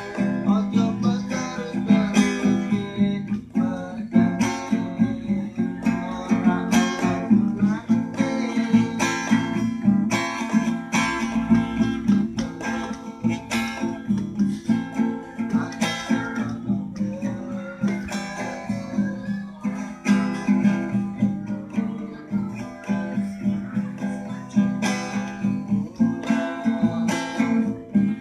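Acoustic guitar strummed in a steady rhythm, its chords ringing between strokes.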